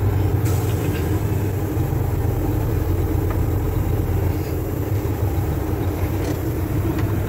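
Mack dump truck's diesel engine running steadily at low speed, heard from inside the cab while the truck eases into position for loading.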